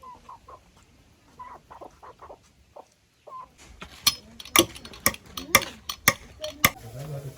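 Chickens clucking, then about six sharp hammer blows, roughly two a second, as nails are driven into timber.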